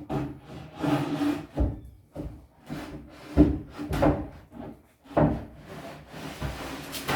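Wooden (MDF) furniture parts rubbing and scraping against each other in uneven strokes, with a few knocks as pieces are shifted and fitted.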